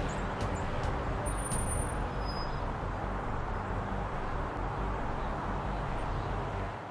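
Front-loader garbage truck's diesel engine running steadily as the truck pulls away, a loud low drone that fades out near the end.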